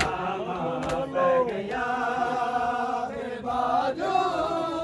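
A crowd of men chanting a Muharram noha together, the voices held on long notes. Sharp slaps of hands on bare chests (matam) come at the start and again about a second in.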